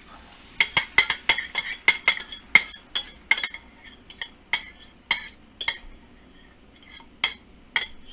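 Metal fork scraping and clinking against a ceramic plate while beaten eggs are pushed off it into a frying pan: a fast, irregular run of sharp clinks that thins out around six seconds in, then picks up again near the end.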